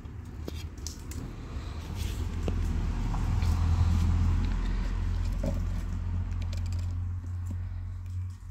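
Low engine rumble of a nearby motor vehicle, swelling over the first few seconds and then holding steady, with faint small clicks over it.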